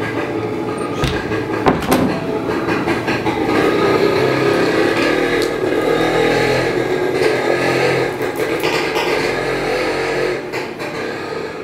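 Motor vehicle engine running steadily close by, with a few sharp knocks between one and two seconds in.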